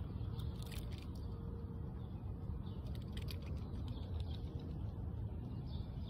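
Steady low outdoor rumble with a scatter of short, high clicks or chirps in the first few seconds.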